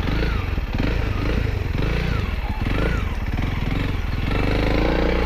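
Honda CRF300L's single-cylinder engine running at low revs as the trail bike is turned around slowly. About four seconds in, the engine note rises as the bike pulls away.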